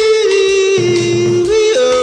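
A high singing voice holding long notes, stepping down in pitch and then back up near the end, over a musical backing with a low pulse.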